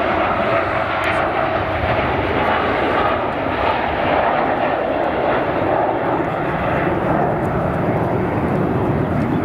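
Jet engines of a four-engined Boeing 747 running steadily as it taxis, a continuous broad roar with no change in level.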